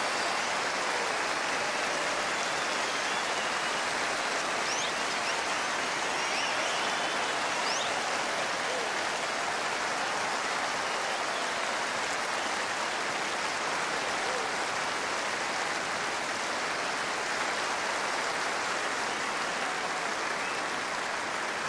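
A very large crowd applauding steadily and evenly at the close of a performance.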